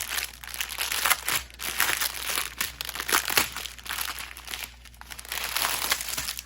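Small plastic bags of diamond-painting drills crinkling as they are handled, an irregular rustling with short sharp crackles.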